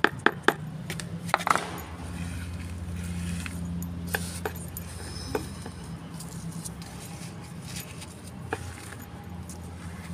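Loose potting soil and clods tipped from a container into a plastic flower pot: a quick run of taps and clinks in the first second or so, then a steady low hum with a few scattered light clinks.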